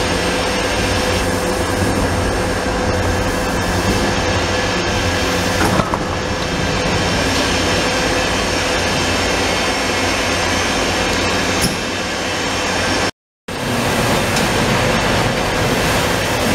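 Trumpf Trumatic L2530 4 kW CO2 laser cutting machine running: a loud, steady hum and hiss with a constant whine, broken by a brief half-second gap about thirteen seconds in.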